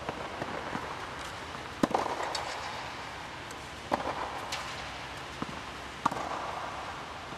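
Tennis ball being hit with a racket and bouncing on the court: sharp pocks about every two seconds, each trailed by an echo from the inflatable tennis dome.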